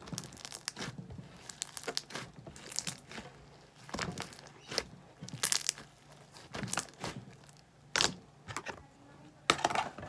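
Hand-kneaded slime being stretched, squeezed and pulled apart, giving short, irregular squishing and tearing noises, the loudest about five and a half and eight seconds in.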